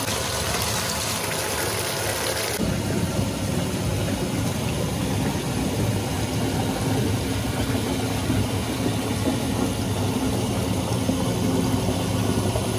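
Bath tap running hard into a filling bathtub, a steady rush of water churning up bubble-bath foam. About two and a half seconds in, the sound turns deeper and more rumbling, with less hiss.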